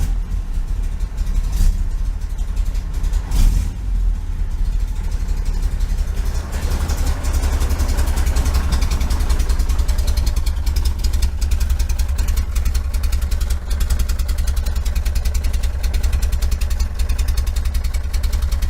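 A 1973 VW Super Beetle's air-cooled flat-four engine runs with a steady low exhaust rumble through its muffler. It is being tested for squeaking and clanking after a bent body tab was bent clear of the muffler. The engine note picks up and gets busier about six seconds in.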